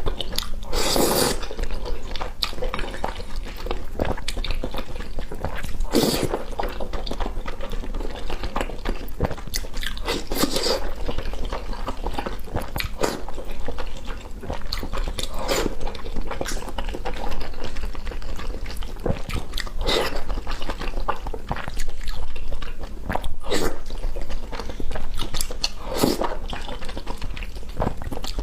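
A person eating noodles, biting and chewing, with a sharper bite or slurp every few seconds.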